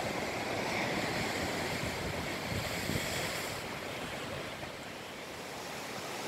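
Sea surf washing against a rocky shore, a steady rushing, with some wind on the microphone.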